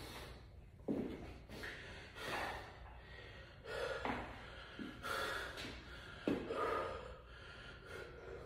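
A man breathing hard from exertion during a set of squats: loud gasping breaths in and out, one roughly every second to second and a half.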